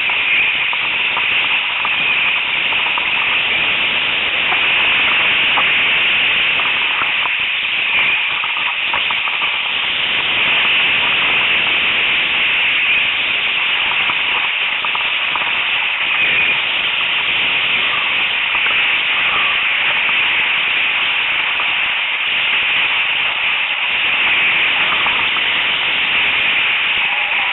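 Steady rushing hiss of wind and breaking surf on a helmet-mounted microphone, with faint scattered crackles.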